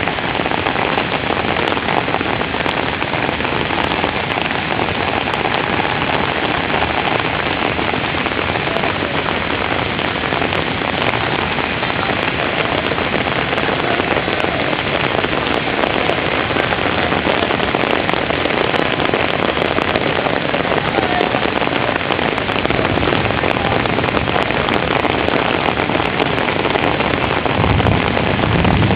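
Rain falling steadily and heavily: a dense, even hiss of drops on hard surfaces. A low rumble swells in near the end.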